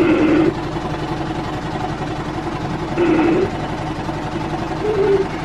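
Air pulse generator of an airway-clearance vest running with a steady mechanical drone during a chest physiotherapy vest treatment. Three short voice-like sounds rise over it: at the start, about three seconds in, and near the end.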